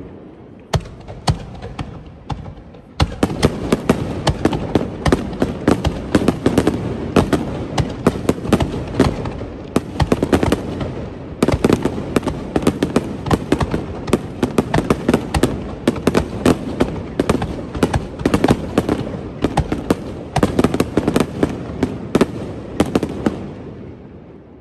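Aerial fireworks display in a rapid barrage: a few separate bangs, then from about three seconds in a dense stream of overlapping bursts and crackle that fades away near the end.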